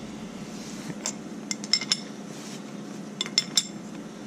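Sharp metal clinks of a 17 mm combination wrench against a threaded port fitting on an oil catch can as the fitting is tightened, in a few short clusters.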